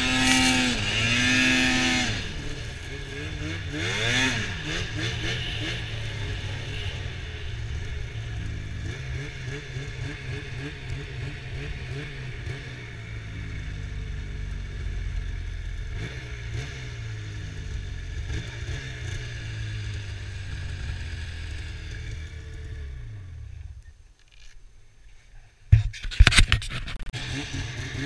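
Arctic Cat ProCross 800 snowmobile's two-stroke engine revving hard with rising and falling pitch at first, then running lower and steadier at low speed. Near the end it drops away to a short lull, a few loud sharp knocks follow, and the engine picks up again.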